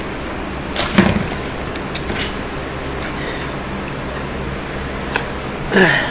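Small items being handled: a few faint clicks and rustles over a steady low background hum, with a brief voice sound about a second in and a short falling one near the end.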